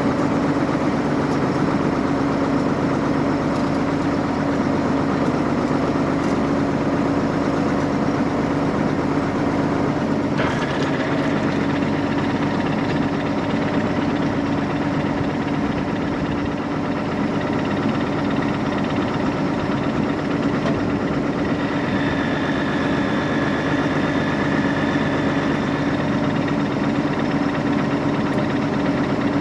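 Tractor engine running steadily at a constant speed. A faint high whine joins about two-thirds of the way in.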